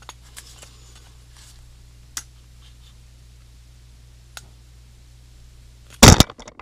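A few light clicks and taps of a small-engine lawnmower carburetor being turned over in gloved hands, then one loud, brief knock near the end.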